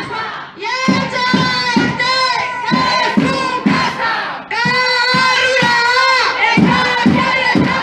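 A crowd of protesters chanting a slogan in unison, two long phrases one after the other, with regular thumps beating in time under the chant.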